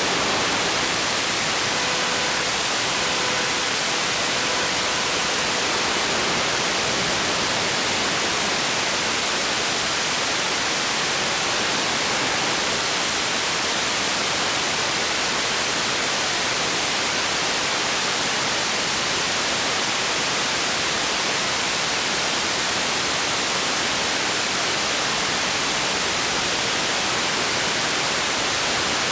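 Steady, even static hiss from the analog FPV video link's audio channel, with a faint tone sounding briefly a couple of seconds in.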